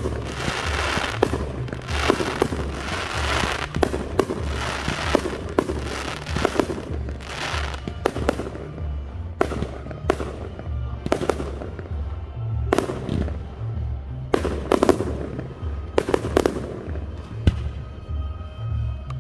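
Aerial firework shells bursting about once or twice a second, several followed by crackling tails. Music with a steady stepping bass line plays underneath.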